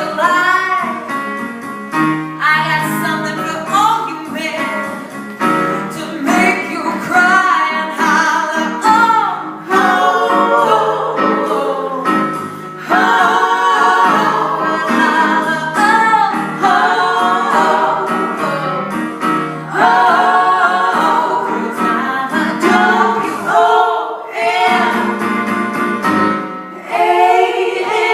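A singer performing a song over instrumental accompaniment in a sound-check run-through, the voice holding long wavering notes.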